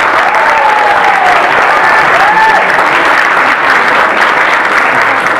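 Crowd applauding steadily, with a couple of cheering calls over the clapping.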